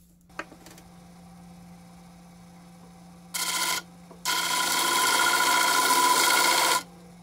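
A click, then a disc sander's motor humming steadily; the wooden knife handle block is pressed against the spinning sanding disc twice, briefly at first and then for about two and a half seconds, giving a loud rasping sanding sound each time.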